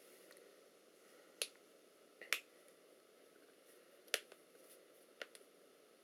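A handful of short, sharp clicks at uneven intervals over quiet room hiss, two of them close together about two seconds in.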